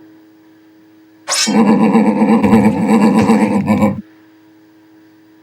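Loud cartoon sound effect, a rough animal-like cry: it opens with a sharp rising sweep, holds for about two and a half seconds, then cuts off abruptly.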